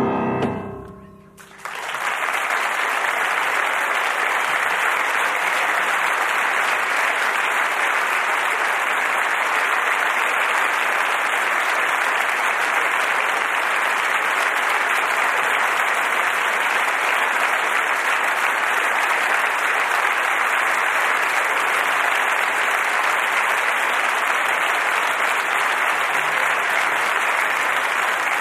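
The last notes of the music ring out and die away within the first second or two, then an audience breaks into steady, sustained applause.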